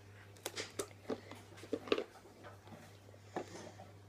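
Clear plastic retail packaging handled by hand: irregular light clicks and crinkles, with a faint steady low hum underneath.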